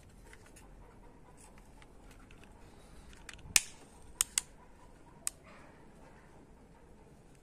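Sharp plastic clicks as the launcher tubes of a toy rocket-launcher truck are tilted and swivelled by hand: one loud click about halfway through, two quick ones just after, and a fainter one a second later.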